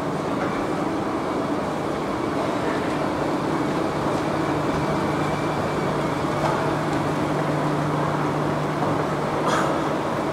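Escalator running: a steady mechanical rumble. A low hum comes in about four seconds in and holds, with a brief click near the end.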